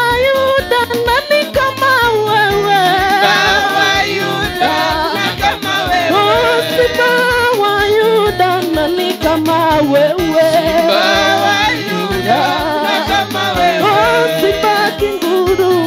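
Live gospel praise music: an electronic keyboard with a steady pulsing bass beat under a wavering sung melody.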